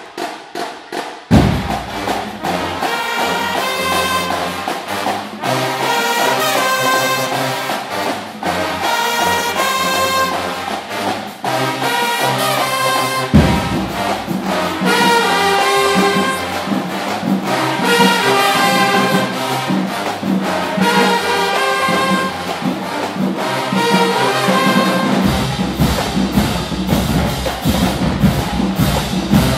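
A marching band's brass section and drumline playing. A few drum strokes come first, then the full band comes in about a second in, with the low brass coming in strongly again about halfway through.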